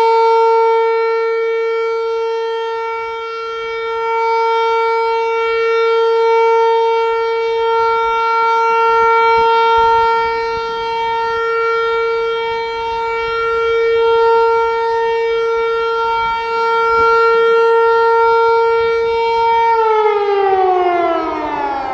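Hörmann HLS 273 motor siren sounding a steady tone, the German all-clear (Entwarnung) signal, its loudness wavering. Near the end the pitch glides steadily down as the siren winds down.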